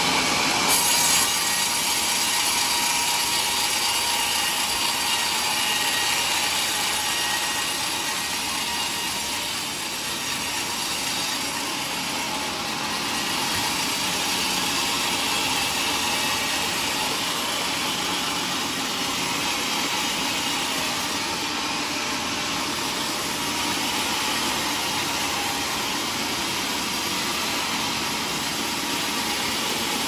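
Vertical band saw of a log-carriage sawmill cutting lengthwise through a teak log, a steady sawing noise of blade through wood over the running machine.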